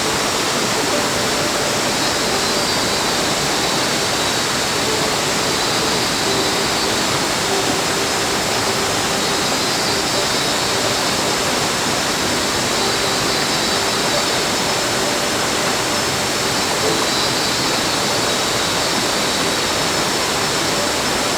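Waterfall and creek water rushing in a steady, unbroken roar of noise.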